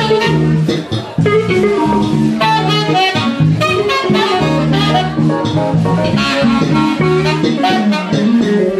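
Live jazz fusion band playing: saxophone lines over electric guitar, electric bass and a drum kit.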